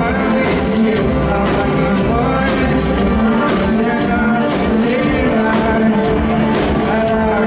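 Live band music: a male lead vocal sung over drums with a steady beat, guitar and keyboards, loud and even throughout.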